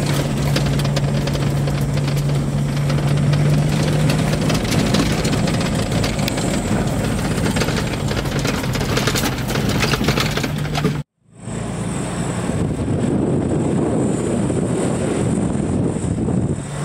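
Car engine running as the car drives along a rough dirt track, heard from inside the cab as a steady hum with road and body noise. The sound cuts out for a moment about eleven seconds in, then carries on.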